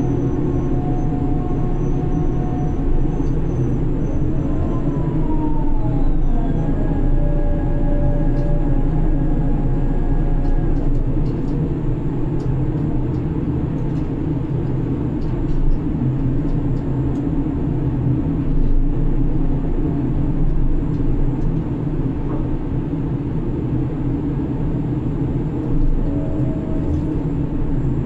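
Grab crane machinery running, heard from inside the operator's cabin: a loud, even drone with whining tones that change pitch, one sliding down about five seconds in.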